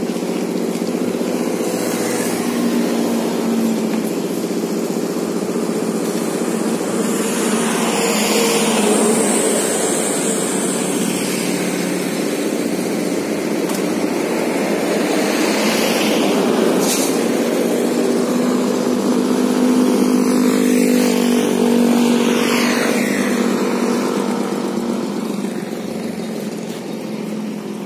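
Large diesel bus engine idling steadily, its hum swelling slightly a couple of times.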